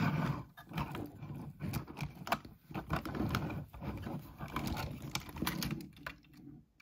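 Diecast toy truck cabs being handled: a rapid, irregular run of small clicks and knocks of metal and plastic against each other and the tabletop, dying away near the end.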